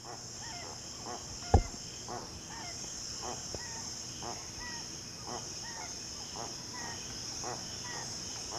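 Marail guan (jacumirim) giving short pitched calls, repeated about twice a second, over a steady high chorus of insects. A single sharp knock sounds about a second and a half in.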